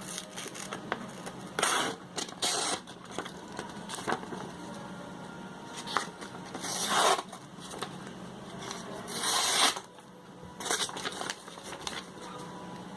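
Swiss Army knife blade cutting through material in several short scraping strokes, with pauses between them.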